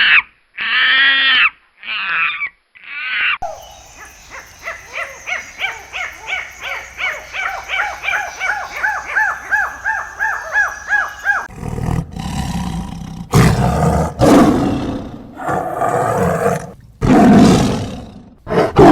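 A sequence of animal calls. First come harsh caws, several in a row; then a long run of quick repeated chirps, about three a second. From about halfway there are loud, deep roars in several long bouts.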